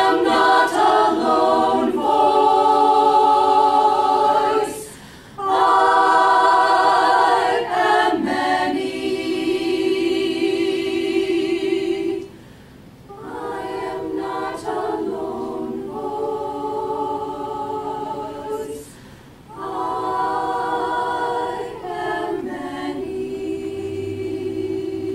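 Women's choir singing a cappella: sustained chords in phrases of several seconds with short breaks between them, softer in the second half.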